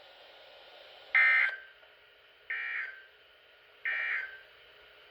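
Three short, high electronic beeps about a second and a half apart over a faint hiss. The first beep is the loudest.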